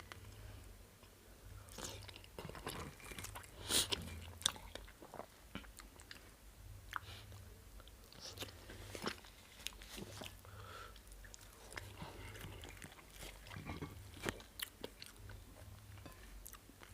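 Close-up eating sounds: a person chewing and biting with wet mouth clicks and smacks at an irregular pace, and a few sharper crunchy bites.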